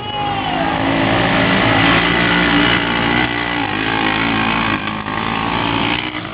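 ATV engine running, its pitch rising and falling with the throttle.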